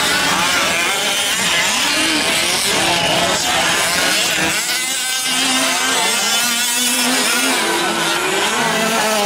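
Several 1/5-scale gas RC short-course trucks racing together, their small two-stroke engines revving up and down, giving overlapping whines that rise and fall as each one accelerates and backs off.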